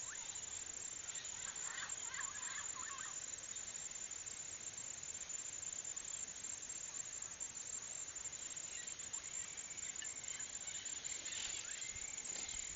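Steady chirring of insects, with a few short high chirps about two seconds in and again near the end.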